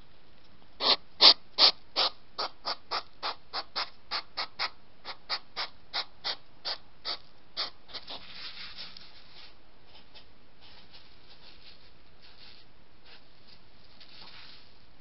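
A European hedgehog crunching dry kibble close to the microphone: a steady run of crisp crunches, about three a second, loudest at first and fading after about eight seconds. Softer scratchy rustling follows as the hedgehog's spines brush against the camera.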